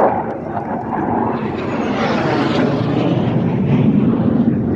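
Military display jet engine noise, a loud steady rush as a jet flies by.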